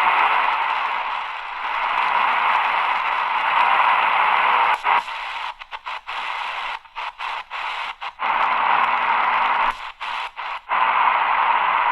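Static hiss from the AGPTEK R09 portable radio's speaker as it is tuned across the shortwave band between stations. About halfway through, the hiss starts cutting out briefly many times as the tuning moves, then holds steady again near the end.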